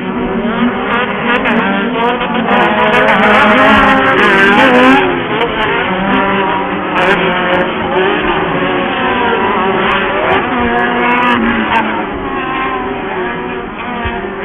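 Several Pro Buggy off-road race cars running on track, with more than one engine note revving up and down at once. It is loudest about four seconds in.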